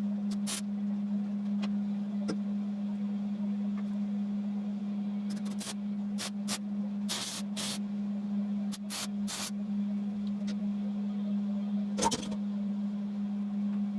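Spray paint going on in short hissing bursts, about nine of them, the loudest about twelve seconds in, over a steady low hum.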